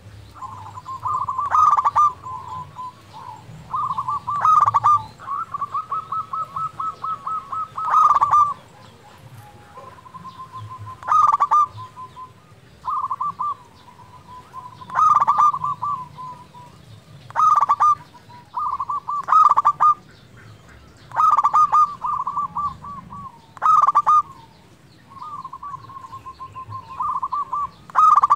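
Local-strain zebra dove (perkutut) singing actively, giving a dozen or so cooing phrases, each a quick rolling run of notes, about every two seconds. One longer run of even, rapid pulses comes about five to eight seconds in.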